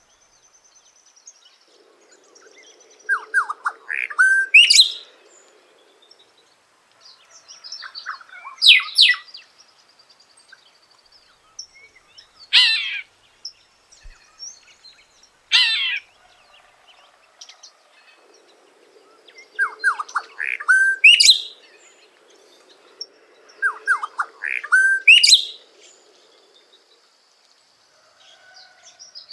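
Cacique singing: short loud phrases of sharp whistled and clicking notes, repeated about every four seconds, with a thin high trill between some of them.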